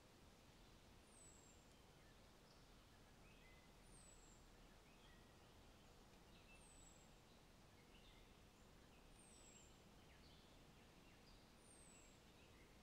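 Faint birdsong: a thin, high note falling in pitch, repeated about every two and a half seconds, with softer chirps in between.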